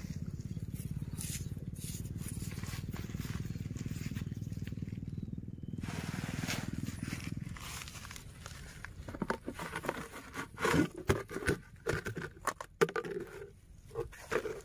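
A steady low rumble that dies away about seven seconds in, then irregular clicks and scrapes of a hand digging through shell-grit sand, with small shells clinking.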